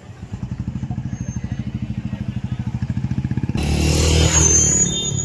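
A motorcycle engine running with a fast, even beat. About three and a half seconds in, a louder, noisier engine and street sound starts suddenly.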